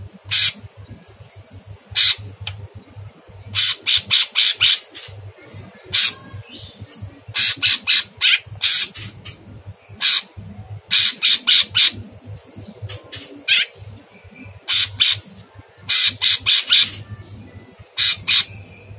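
Orange-bellied leafbird (cucak cungkok) singing in a super harsh voice: short, rasping notes, some alone and some fired in quick clusters of four to six, with gaps of about a second between groups.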